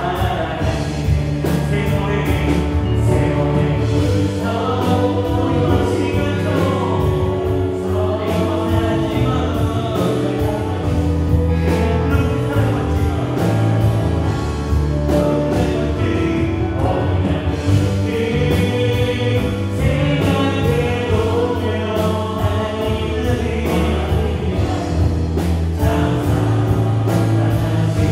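Live worship band playing a gospel praise song: electric guitar, electric bass, drum kit and two synth keyboards (a Korg Triton Pro and a Yamaha Montage) in a steady full-band groove.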